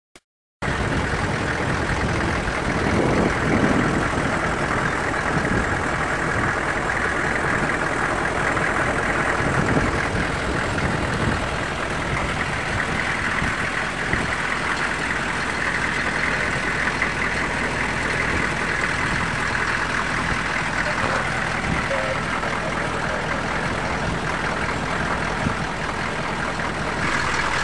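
Vehicle engine idling steadily, a constant hum with hiss.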